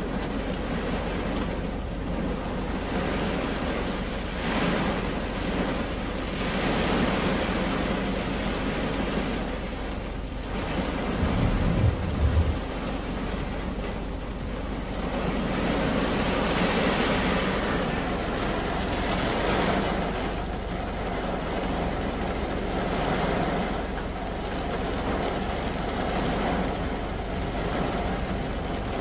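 Rain falling on a car's roof and windscreen, heard from inside the car: a steady hiss that swells and eases every few seconds, with a brief low rumble about twelve seconds in.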